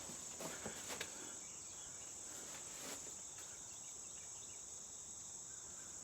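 Faint steady high-pitched insect chorus, with a few soft knocks in the first second.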